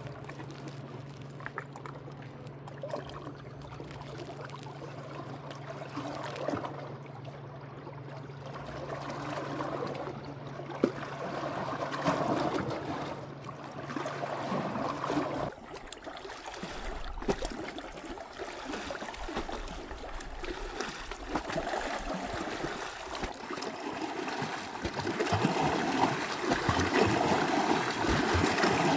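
Water trickling and running, like a small stream, getting louder near the end. A low steady hum runs under it and cuts off suddenly about halfway.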